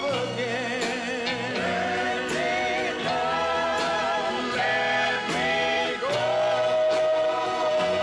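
A male crooner singing a slow pop ballad with vibrato over a backing band and backing voices, holding a long final note from about six seconds in.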